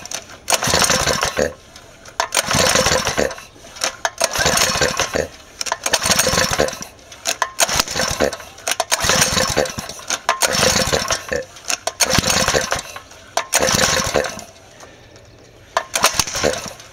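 Recoil starter of a small single-cylinder four-stroke engine being pulled again and again, a whirring crank of about a second every one and a half to two seconds. The engine, running on HHO gas in place of a carburettor, does not catch.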